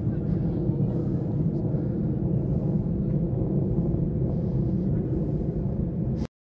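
Steady low rumble of wind and sea surf at the beach, cutting off suddenly near the end.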